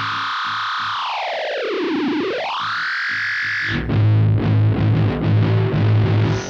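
Circuit-bent Waldman flanger pedal producing distorted effects noise: a sustained drone sweeps down in pitch and back up, then about four seconds in it turns louder and choppy, with a pulsing low note under the noise.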